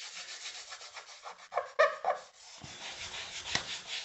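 Scratchy rubbing and scuffing on laminate floor boards, in quick back-and-forth strokes, with a few louder scrapes about two seconds in and a short knock near the end.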